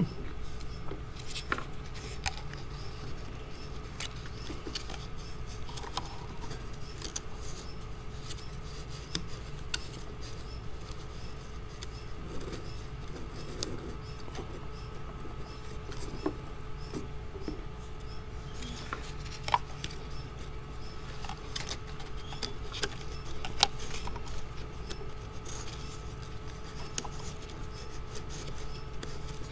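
Soft rustling and scattered small ticks of watercolor-paper strips being handled and slid over and under each other as they are woven together, over a steady faint hum.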